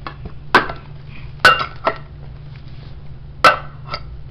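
Metal food cans knocking against each other as they are set down on top of one another in a stack: five short metallic clinks with a brief ring, three of them louder.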